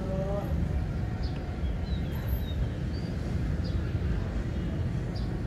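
Outdoor ambience: a steady low rumble, with a distant shout right at the start and scattered short high chirps of small birds.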